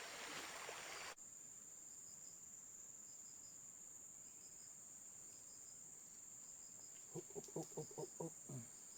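Insects, crickets among them, make a steady high drone, with short triple chirps about once a second. A rushing-water hiss cuts off suddenly just over a second in. Near the end come a few short, low voice-like syllables.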